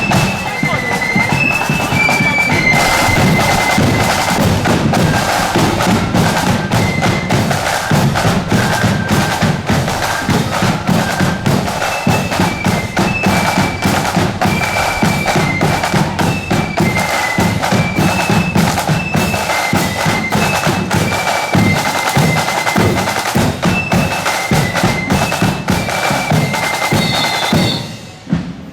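A marching band playing a tune: a high melody over drums, with snare rolls and bass drum beats, stopping near the end.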